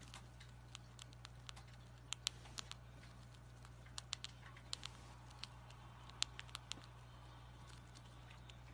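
Irregular light clicks and taps, a couple of dozen scattered sharp ticks, over a steady low electrical hum.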